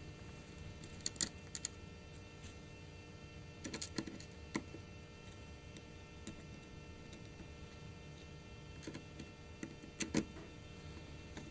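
Scattered light metallic clicks and taps as a small screwdriver works the screws of a Titanium PowerBook's base plate. They come in a few short groups: a couple about a second in, a cluster around four seconds, and two more near the end, over a low steady hum.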